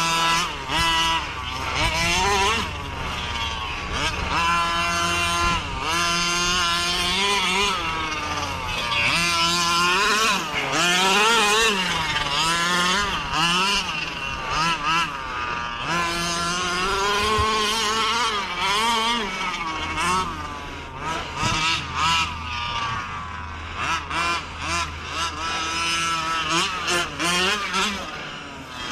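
Small two-stroke petrol engine of a 1/5-scale gas RC car revving up and down again and again as it is driven, the pitch climbing and dropping every second or two, with short quick throttle blips in the last few seconds.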